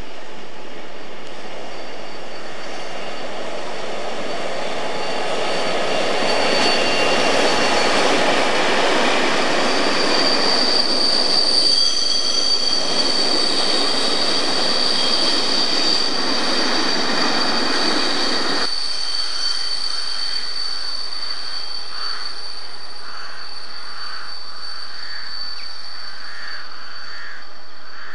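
Diesel-hauled passenger train passing at speed: a rising rumble of engine and wheels swells to a peak as the coaches go by, with a steady high-pitched wheel squeal over it. About two-thirds of the way through the sound cuts off sharply to a much quieter background of the train moving away.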